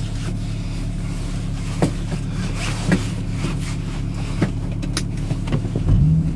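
Toyota Supra's twin-turbo 2JZ-GTE straight-six idling steadily, heard from inside the cabin, with a few light clicks. Near the end the revs rise and fall in a short blip.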